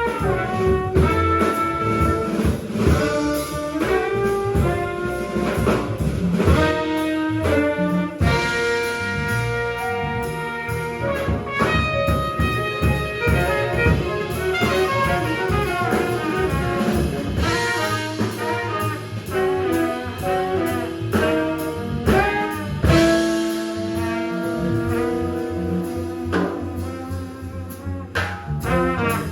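Live small-group jazz: tenor saxophone and trumpet playing lines over a rhythm section with busy drums.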